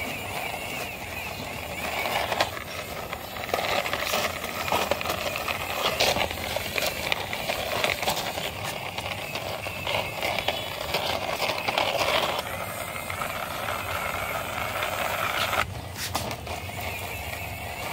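Plastic toy car's wheels rolling and scraping over rough concrete and stone as it is pushed by hand: a continuous gritty rolling noise with many small clicks and knocks.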